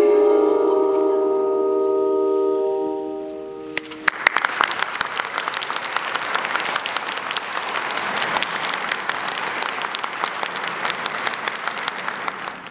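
A solo female singer holds the final note of a song, which fades out about four seconds in. The audience then applauds, and the sound cuts off suddenly near the end.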